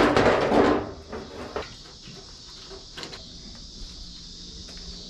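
Steel front fender being fitted onto the car body: a loud clattering scrape in the first second, then a few light knocks of metal.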